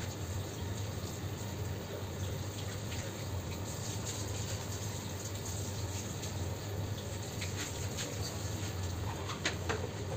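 Steady low hum under a hiss of background noise, with a couple of faint clicks near the end.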